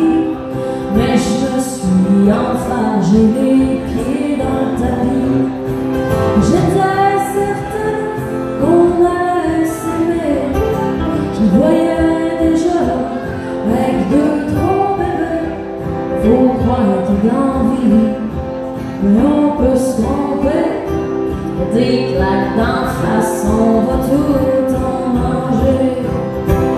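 Live country-folk song played on two strummed acoustic guitars, with a woman singing the melody.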